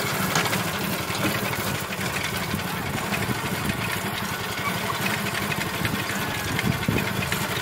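Small single-cylinder gasoline water-pump engine running steadily with a fast, even beat as it drives a homemade mini tractor over dirt.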